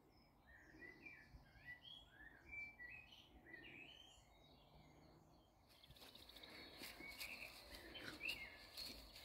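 Faint songbird chorus: several birds singing short, quick chirping phrases. About halfway through, a louder hiss and scattered clicks come in under the song.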